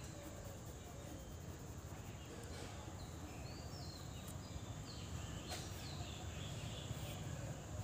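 Birds chirping in the background: short curved chirps every second or so, over a steady low background rumble, with a sharp click about five and a half seconds in.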